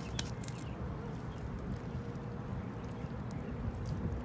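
Wind buffeting the microphone, a steady low rumble, with a few faint clicks near the start.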